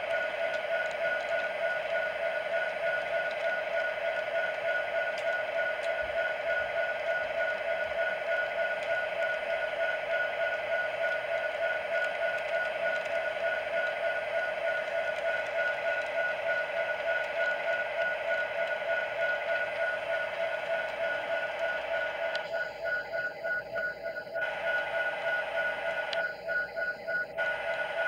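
Model train running on a layout track: a steady electric whine from the locomotive's motor and gearing with rolling wheel noise from the cars. Near the end the sound briefly thins out twice.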